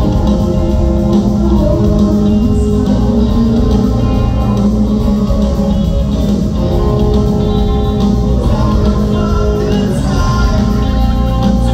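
Live rock band playing loudly, with electric guitar and a sung lead vocal over bass and drums.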